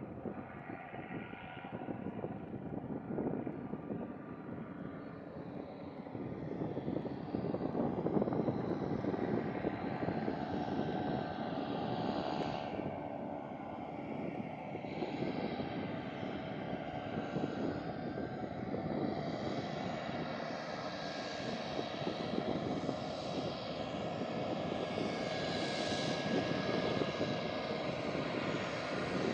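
Daher TBM 700's Pratt & Whitney Canada PT6A turboprop and propeller running at taxi power: a steady propeller drone with a high turbine whine. It grows louder over the first several seconds as the aircraft taxis closer.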